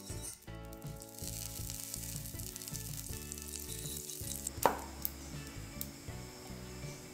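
Butter sizzling as it melts in a hot stainless steel frying pan while it is spread around, with one sharp knock a little past halfway.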